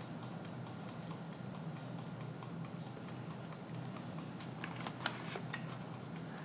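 Steady low electrical-sounding hum with a few faint, small clicks and taps, one about a second in and a small cluster around five seconds in.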